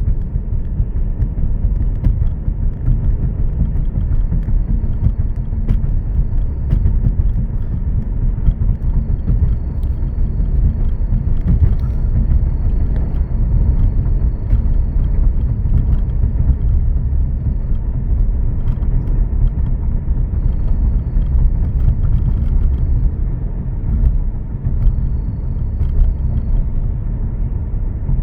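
Mercedes-Benz E350 4Matic with the M276 V6 on the move: a steady heavy low rumble, with a faint high whine that comes and goes several times. This is the noise when moving that new idler pulleys, a new serpentine belt and a new tensioner pulley reduced but did not cure.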